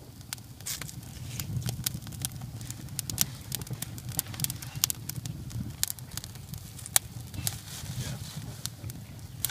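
Campfire of dry leaves and split kindling catching, crackling with many irregular sharp snaps and pops over a low steady rumble.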